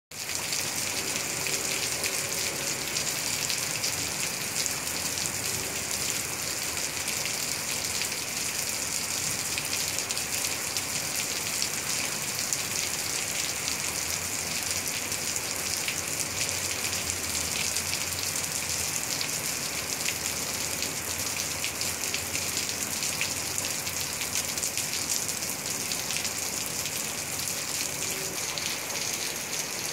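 Steady rain falling on wet pavement: an even hiss of many drops striking the hard, wet surface.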